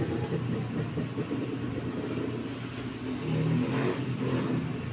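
Epson inkjet printer's motors and gears running through their power-on cycle, a low mechanical whir that grows louder for a moment about three seconds in. It is the sign that the printer now powers up after its power supply repair.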